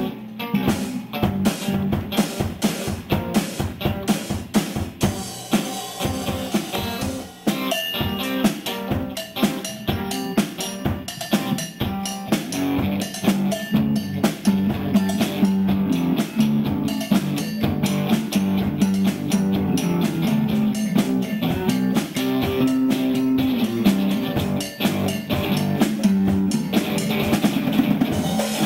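Drum kit and guitar playing together live, the drums keeping a steady beat under the guitar.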